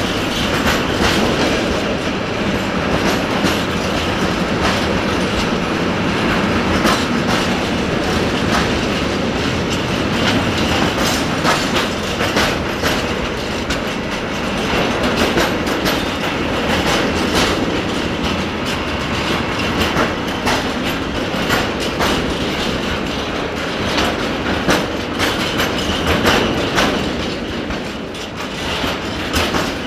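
Freight train of bogie tank wagons rolling past at close range: a steady rumble of steel wheels on rail, with repeated clicking as the wheelsets cross the rail joints.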